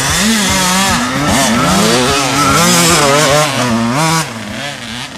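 Dirt bike engines revving up and down as riders pass close by, then dropping off sharply about four seconds in.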